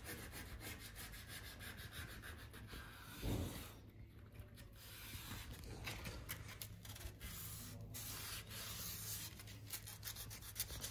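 Faint hand rubbing on a motorcycle tire sidewall, a run of light strokes that prepares the rubber for a lettering sticker. There is one dull knock about three seconds in, over a steady low hum.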